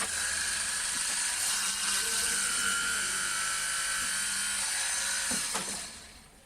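Electric woodworking machine running steadily with a high whine and hiss. It starts suddenly, then dies away about five and a half seconds in.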